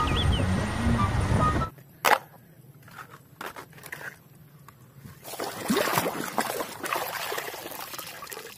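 Background music with bird chirps that cuts off about two seconds in, followed by a sharp knock and a few clicks of a toy being handled. From about five seconds in, water sloshing and trickling as a muddy toy sand truck is washed.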